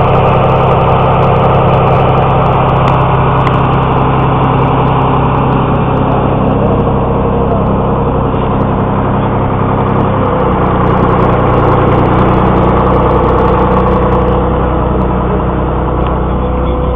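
A vehicle engine running steadily; its note shifts a little about ten seconds in.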